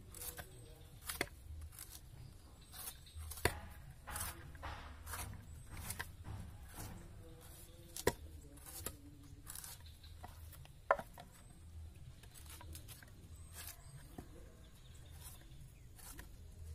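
Machete blade scraping and chopping leftover roots and soil off a banana corm, in short irregular strokes, with three sharper knocks a few seconds apart.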